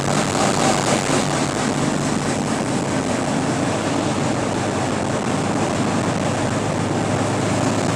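Steady engine and road noise inside the cab of a loaded semi truck cruising down the highway.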